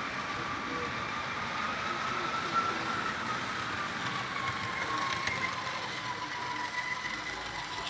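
Tyco HO scale Alco C-430 model locomotive running along the track, its small electric motor and gears giving a steady whine that sinks slightly in pitch, with a few faint ticks from the wheels on the rails.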